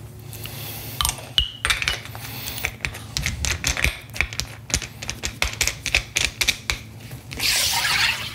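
Small metal clicks and clinks as a CO2 charger cartridge is handled and fitted into the holder of a stainless-steel cream siphon. Near the end comes a sharp hiss as the holder is screwed home, the cartridge is pierced and the gas rushes into the siphon.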